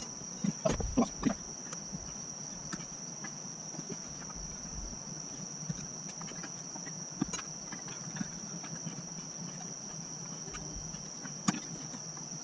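Steady high-pitched insect trill, with a few scattered clicks and knocks in the first second or so and again near the end.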